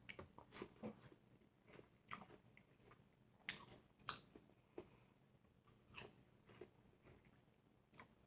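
Faint chewing of firm watermelon flesh: soft, irregular wet crunches and mouth clicks.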